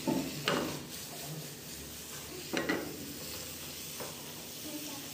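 Green beans, carrots and peas sizzling in butter in a frying pan as they are stirred with a silicone spatula, with two louder stirring strokes, one about half a second in and one about two and a half seconds in.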